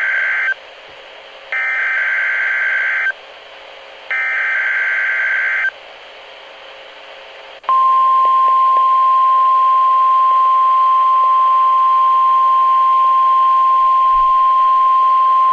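NOAA Weather Radio test signal: the end of one digital SAME header burst, then two more identical bursts about a second apart, and after a short pause the steady 1050 Hz warning alarm tone, which holds to the end. It marks the required weekly test of the warning system, not a real alert.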